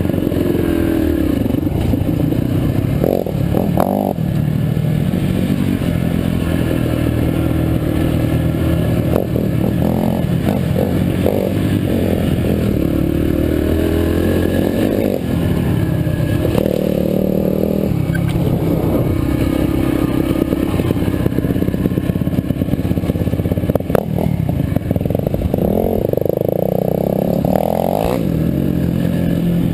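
Four-stroke Yamaha dirt bike engine running under constantly changing throttle, its note rising and falling as the rider speeds up and backs off, with clattering from the bike over the rocky dirt trail.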